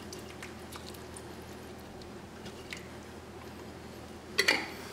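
Wet jarred pepper rings and their juice sliding out of a glass jar into a crock pot, with soft squishing and a few faint clicks. A short sharp knock about four and a half seconds in.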